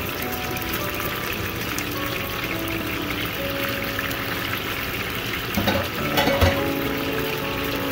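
Round scad frying in hot olive oil in a pan, a steady sizzle. A few sharp clacks of metal tongs against the pan and fish come about five and a half to six and a half seconds in.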